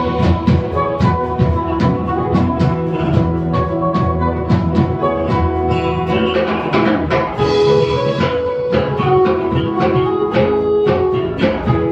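A live jazz band playing: sustained melodic notes over a drum kit keeping time with frequent hits.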